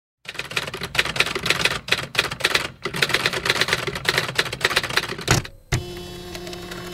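Typewriter keys clacking in a rapid run for about five seconds. After a short break comes a steady, pitched hum.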